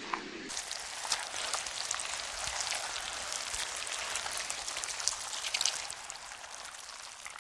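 A dense, steady patter of many small ticks and crackles, starting about half a second in.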